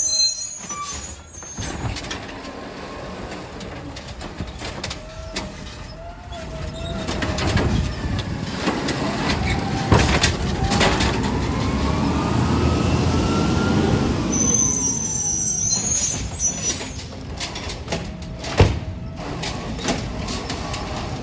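Garbage truck working at the curb: its diesel engine runs and revs up and down under load, with a whine that rises and falls. A couple of sharp metal knocks come through, one about halfway through and one near the end.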